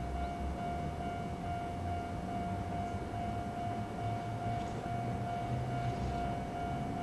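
Chichibu Railway DeKi 500-class electric locomotive No. 503 moving slowly on a shunting move. It gives a steady whine over a low rumble.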